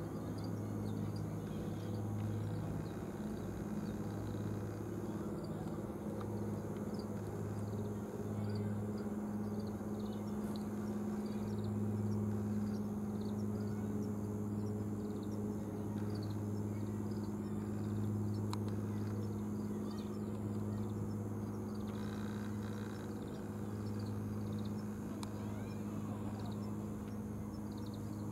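A steady low mechanical hum, like an idling engine, with several even overtones, under faint scattered high ticks.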